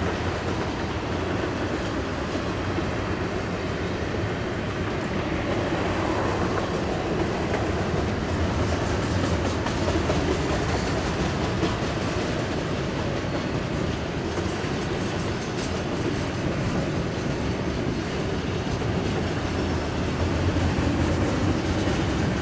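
Double-stack intermodal well cars of a freight train rolling past, a steady noise of steel wheels running on the rails.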